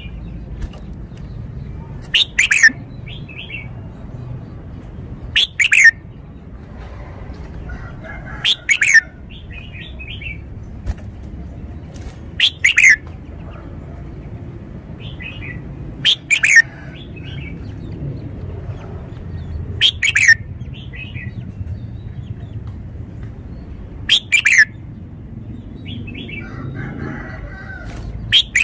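Red-whiskered bulbul singing short, loud, whistled phrases that fall in pitch. The phrases repeat about every four seconds, each followed by a few softer notes, over a faint low background hum.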